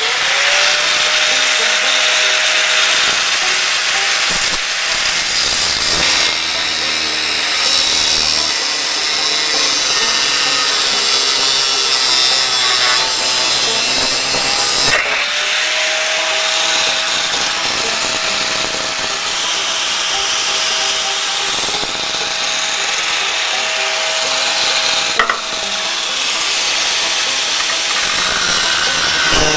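Grinder with a cut-off wheel cutting through the metal frame of an old boat seat, running continuously with a high scraping hiss. Its motor whine sinks as the wheel bites into the metal, then spins back up about halfway through and keeps cutting.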